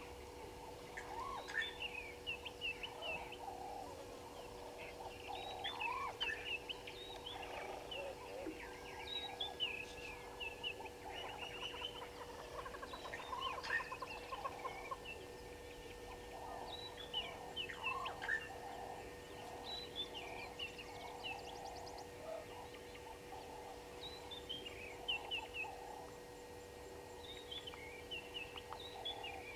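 Birds calling: many short, high chirps, each falling in pitch, over lower clucking calls, with a steady low electrical hum underneath.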